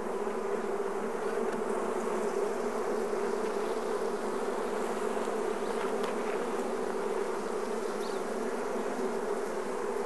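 A colony of honeybees buzzing in a steady, even drone over an opened Langstroth hive, with many bees crowding the top bars and combs.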